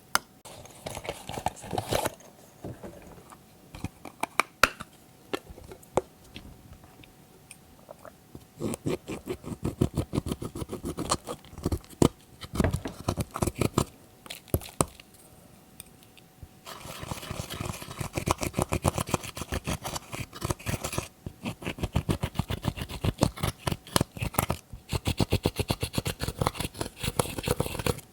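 Glossy slime being mixed and squeezed by hand, giving quick runs of wet, sticky clicks and pops. The clicks are scattered at first and come thick and fast through most of the rest.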